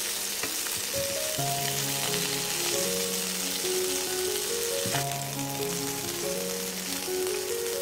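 Spotted snakehead (taki) fish and dried red chillies sizzling in shallow oil in a nonstick frying pan, with a light knock about five seconds in as a spatula turns the fish. Background music with slow, held notes plays over the sizzle.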